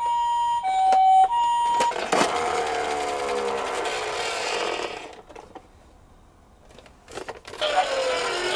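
Toy ambulance's electronic Japanese two-tone siren, a high and a low tone alternating. About two seconds in a click is followed by a whirring that falls in pitch and dies away over about three seconds, as the toy's wheels spin down. After a short near silence and a click, the whirring starts again near the end.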